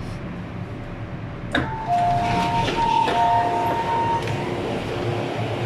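MTR M-Train passenger door opening: a low rumble from the train, then a sharp click about a second and a half in as the doors release, followed by the two-tone door chime sounding twice while the doors slide open.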